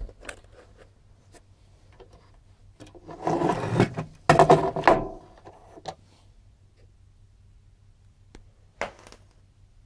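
Handling noise of a plug-in circuit card on an OSB board: two stretches of scraping and rubbing, about three and four and a half seconds in, with light clicks around them and a short knock near the end.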